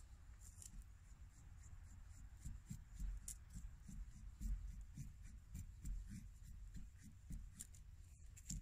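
Knife blade shaving curls off a stick of kindling: a steady run of short scraping strokes, about three a second.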